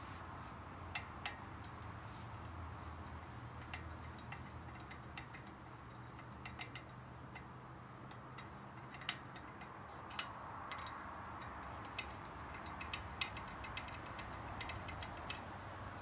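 Scattered light metal clicks and taps as lug nuts and studs are handled and threaded on an anodized aluminium wheel spacer bolted to the hub, with one sharper click about two-thirds of the way through, over a steady low hum.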